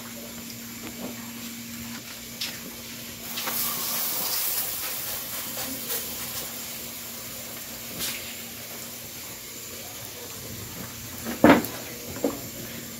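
Wood fire burning under and on top of a bake pot, with a steady hiss and scattered crackles, and a louder rush of hiss about three seconds in. Near the end there is a sharp knock, then a smaller one, as sticks are set on the top fire.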